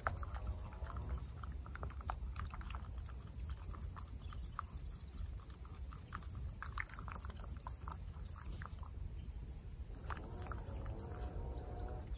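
Thin wooden stick stirring wet soil in an enamel mug: faint, irregular scraping and tapping against the mug, over a steady low rumble. Faint animal calls can be heard in the background, most clearly near the end.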